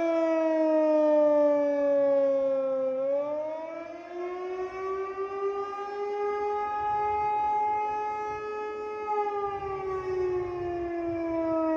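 Outdoor tornado siren sounding a wail during a test. Its pitch falls over the first three seconds, climbs back up, holds steady for a few seconds, then falls again near the end.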